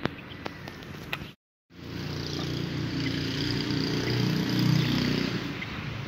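A few faint small clicks, then after a brief cut-out in the sound a motor vehicle's engine runs by, growing louder to a peak and then fading away.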